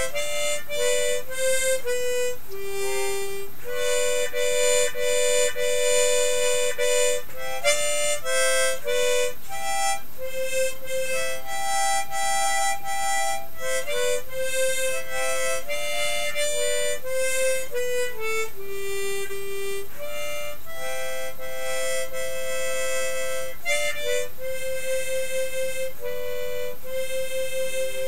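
Solo harmonica playing a tune, one note after another, some short and some held for a second or more.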